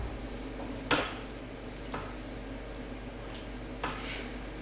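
A few light clinks of a small porcelain coffee cup being handled on its saucer and the table, the sharpest about a second in and a softer one near the end as the cup is lifted to drink, over a steady low hum.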